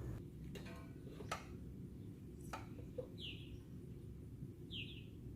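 Low steady hum with a few faint clicks, and two short falling bird chirps, about three and five seconds in.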